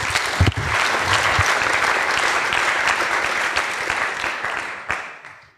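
Audience applauding in a lecture hall, a dense patter of clapping that dies away near the end.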